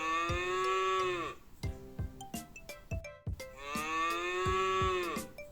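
A cow mooing twice, each moo lasting about a second and a half, its pitch dropping at the end.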